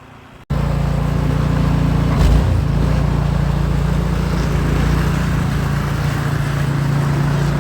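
Snowblower engine running steadily at a constant speed, starting abruptly about half a second in.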